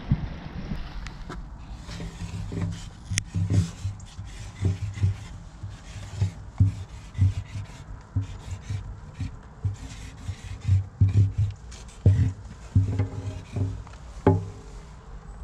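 A thick paint marker's tip dragged across ribbed wired glass, in a run of short, irregular scratchy rubbing strokes as letters are written.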